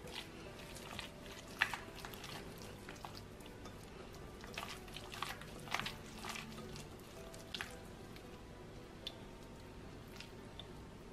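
Minced beef and pork with chopped onion squelching as gloved hands knead it in a glass bowl for hamburg steak patties: irregular wet squishes and small clicks, thinning out towards the end.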